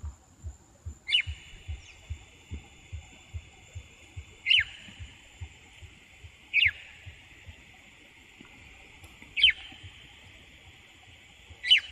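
Chalk-browed mockingbird (sabiá-do-campo) giving five short, harsh calls a few seconds apart, each a quick downward sweep. A steady high-pitched whine and faint low thumps, about two a second, run underneath for much of the time.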